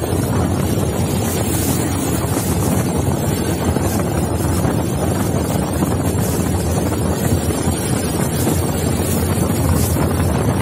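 Wind buffeting the microphone on a motorcycle cruising at steady speed, with the bike's engine and road noise running underneath.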